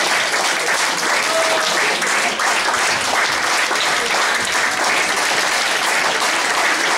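Audience applauding steadily: dense clapping of many hands that holds level throughout.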